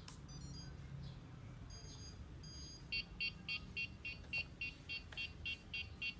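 Electronic beeping from an RC helicopter transmitter: a few short high chirps, then a rapid run of even beeps at about four a second starting about halfway in.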